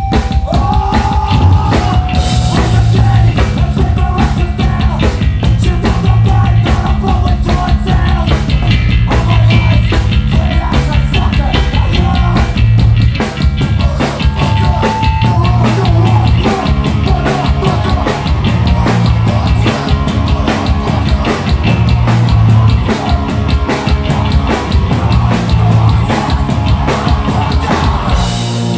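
Hardcore punk band playing live: loud distorted guitars and bass over fast, busy drumming. The deepest bass thins out about halfway through.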